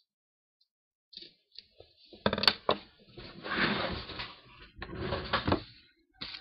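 Handling noise as parts and tools are set down on a desk: a few sharp knocks, then two stretches of rustling about a second each, and a click near the end.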